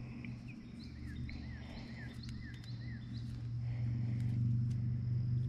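A steady low drone, getting a little louder after about three and a half seconds, under a songbird singing a quick series of short falling chirps over the first three seconds. A few faint clicks sound as a hook is worked out of a small bluegill's mouth by hand.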